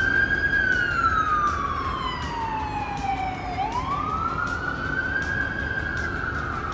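Emergency vehicle siren wailing over city street noise: one slow tone falls steadily for about three and a half seconds, sweeps quickly back up, then begins to fall again.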